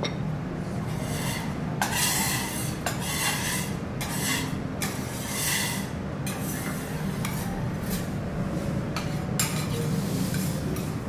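A spoon scraping and scooping fried rice against a glazed ceramic bowl, in several short rasping strokes, over a steady low hum.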